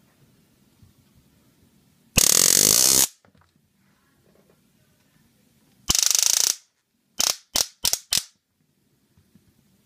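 Handheld stun gun arcing between its electrodes in loud crackling zaps: one lasting about a second, another of about half a second, then four short quick zaps.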